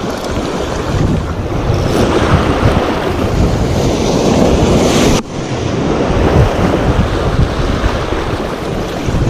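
Surf washing over shoreline rocks, with wind buffeting the microphone. The wash swells about two seconds in and drops away suddenly about five seconds in.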